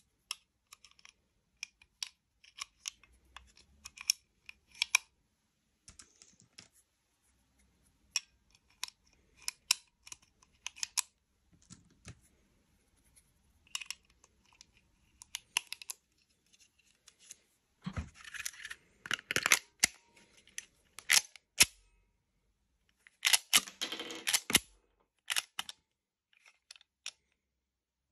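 9 mm cartridges being pressed one by one into a steel pistol magazine, giving a string of small sharp metallic clicks. About two-thirds of the way through come two louder, busier spells of metallic clattering and handling.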